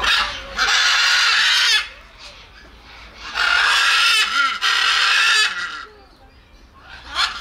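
Macaw parrot screeching: two loud, harsh screams, the first about a second long and the second about two seconds, with quieter squawks between them and a short squawk near the end.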